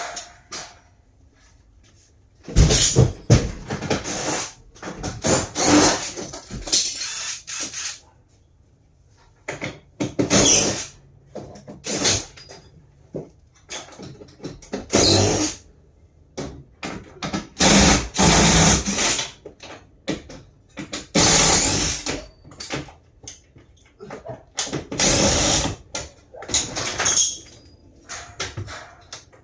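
Power drill run in repeated short bursts of about a second each, with brief pauses between, as when driving fasteners.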